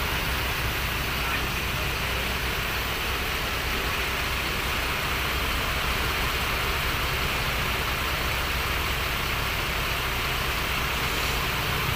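Bus engine idling steadily, a low even hum under a constant hiss.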